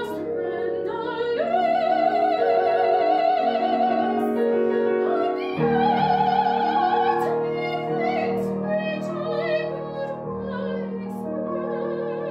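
Female classical voice singing an art song in operatic style with wide vibrato, over piano accompaniment: two long, loud held notes, then shorter phrases that grow quieter.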